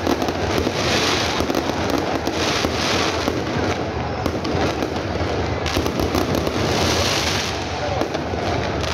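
Continuous loud crackling and popping, in waves that swell and fade every second or so, with a crowd's voices underneath.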